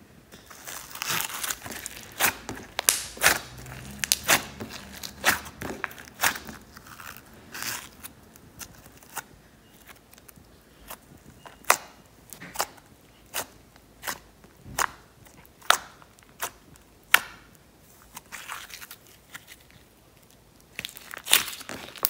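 A hand squishing and poking a lump of glitter slime from a Nickelodeon Galactic Glitter kit, giving sharp sticky pops and clicks. They come in a quick string for the first several seconds, then about one a second, with a lull shortly before more at the end.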